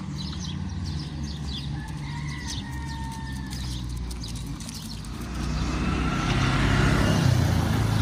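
Street ambience: a low engine hum with short bird chirps, then traffic noise growing louder from about five seconds in as a motor vehicle comes by.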